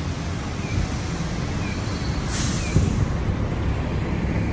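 Street traffic noise: a steady low rumble of road vehicles, with a short burst of hiss about two and a half seconds in and faint short chirps repeating about once a second.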